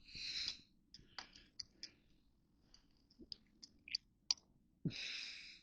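A person breathing out twice, soft and hissy, at the start and again about five seconds in, with faint scattered clicks in between.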